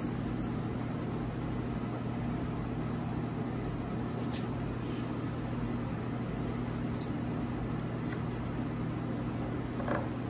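Steady low electrical hum of shop equipment, with a few faint tool clicks and a short light metal scrape near the end as a screwdriver meets the distributor's steel advance plate.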